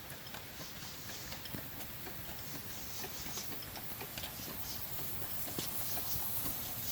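Steam engine running on steam from a propane-fired Doty boiler, giving light rhythmic clicks a few times a second over a steady hiss.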